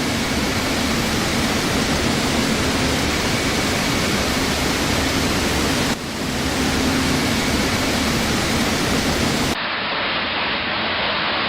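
Torrential rain and rushing floodwater, a dense, steady rush of water noise. The sound changes abruptly about six seconds in and again near ten seconds, where one clip cuts to another.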